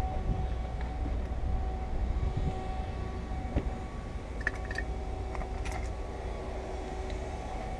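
A steady low rumble with a faint even hum, like a running engine or machine, and a few light clicks and taps about halfway through.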